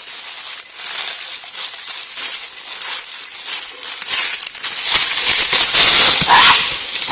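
Dry leaf litter rustling and crackling as a gorilla moves close past the camera trap, over a steady hiss, growing loudest about five to six seconds in.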